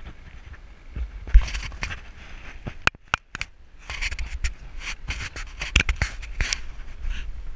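Handling noise on an action camera's housing: rough scraping and rubbing with many sharp clicks, strongest about a second in and again from about four seconds on, over a low wind rumble on the microphone.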